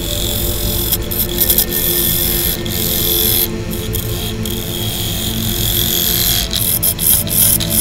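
A lathe gouge cutting the inside of a spinning birch bowl: a steady hiss of shavings peeling off the wood, which breaks off briefly a few times as the tool leaves and re-enters the cut.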